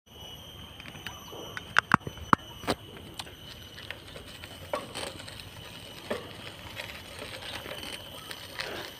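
Bicycle rolling over a rough unpaved track, with tyre noise and rattling. A few loud sharp knocks come about two seconds in, and a steady high tone runs underneath.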